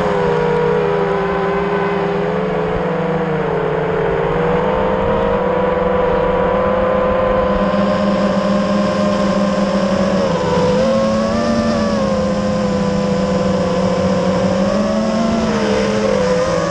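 FPV freestyle quadcopter's brushless motors and propellers whining steadily in flight, heard from the onboard camera. The pitch shifts a little with throttle, dipping and rising again about ten seconds in.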